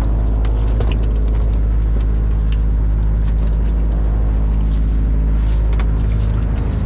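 A fishing boat's engine running steadily, with scattered knocks and clatter of crab pots and gear being handled on deck.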